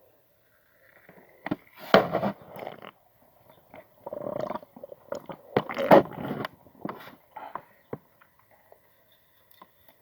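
Close-miked mouth sounds: sharp clicks and short noisy rushes, clustered about two seconds in and again about six seconds in, with smaller ones between.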